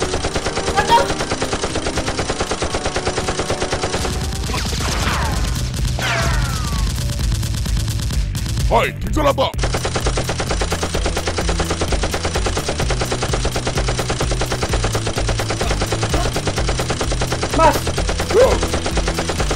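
Continuous rapid automatic-gunfire sound effects, dubbed over a mock Nerf blaster fight in place of the blasters' real sound. A few brief sweeping whizzes cut through the shooting.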